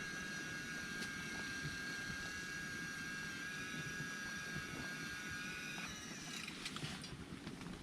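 Daiwa Crystia CRT+ electric wakasagi reel motor whining at one steady pitch as it winds in line, stopping about six seconds in. A few light clicks of handling follow.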